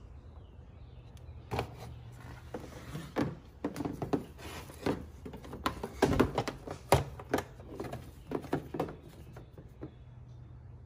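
Irregular clicks, knocks and rattles of rubber hoses, fittings and zip ties being handled in a car's engine bay, over a steady low hum. Most of the handling falls between about a second and a half in and about nine seconds in.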